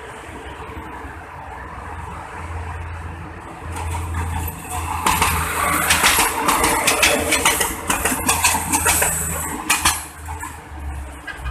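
PT INKA 8000-class diesel-hydraulic multiple unit (set 8002) approaching and passing close by: a low diesel engine drone grows louder, then from about five seconds in the wheels clatter and rattle on the rails with a thin high squeal. The sound drops away about ten seconds in as the train moves off.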